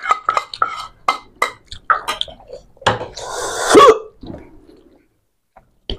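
Eating noises: short clinks of plates and mouth sounds of eating rice and curry by hand. About three seconds in comes a loud breathy gasp lasting about a second that ends in a short falling vocal sound, and then it goes quiet.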